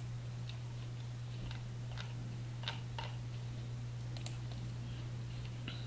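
Faint, scattered clicks of a computer mouse, several over a few seconds, over a steady low electrical hum.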